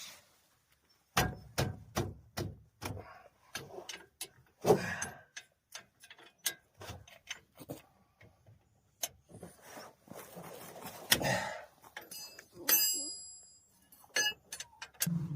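Irregular clicks, knocks and metallic clinks of hand tools working on a car's front wheel hub, with a couple of short scrapes and a brief ringing clink near the end.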